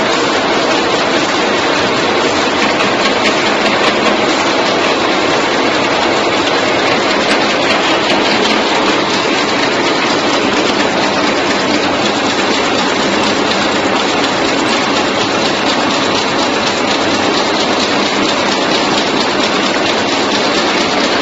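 Automatic chewing gum wrapping machine running at speed, a steady, dense mechanical clatter of its rotary feed wheel, folding head and conveyor.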